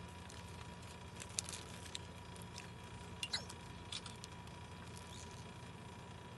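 Faint mouth sounds of someone eating: a scattered handful of sharp wet smacks and clicks, the loudest about three seconds in. Under them runs a steady low hum with a thin steady tone.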